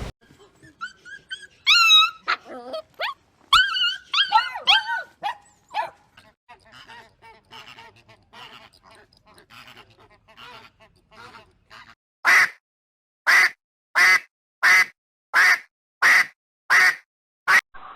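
A canine yipping and whining in high, bending calls, then barking sharply eight times in an even series, about one bark every 0.7 seconds.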